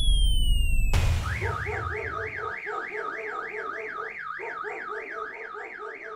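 Electronic alarm siren warbling up and down about four times a second, with a pulsing lower tone beneath it, fading gradually. It starts right after a sudden sharp hit about a second in. Before the hit there is a loud low rumble with descending electronic tones.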